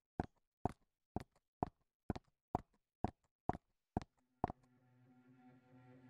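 Footsteps of hard-soled shoes on a hard floor, ten sharp clicks about two a second, each with a short echo. About four and a half seconds in, a low, steady ambient music drone fades in.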